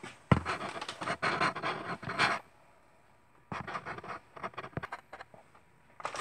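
Close handling noise: scraping and rubbing with many sharp clicks, in two spells of about two seconds each, and a short scrape right at the end.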